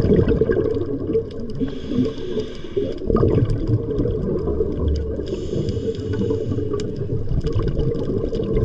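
Underwater sound of a diver's breathing: a hiss of about a second recurs every three and a half seconds or so, over steady bubbling and gurgling rumble.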